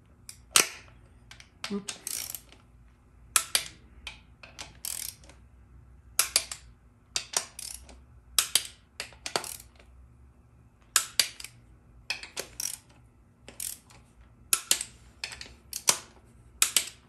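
Click-type torque wrench on a socket, ratcheting and clicking in short bursts of sharp metallic clicks, about one burst a second, as the pump bolts of a Dodge 48RE automatic transmission are torqued down in a crisscross pattern.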